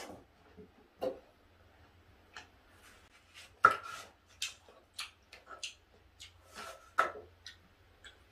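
Kitchen knife slicing a watermelon on a wooden cutting board: a series of sharp knocks as the blade meets the board, the loudest about three and a half seconds in, with softer cutting sounds between.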